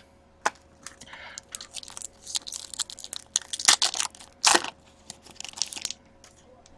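Plastic hockey card pack wrapper being torn open and crinkled, with cards clicking against each other as they are handled: a run of sharp crackles, loudest about four seconds in.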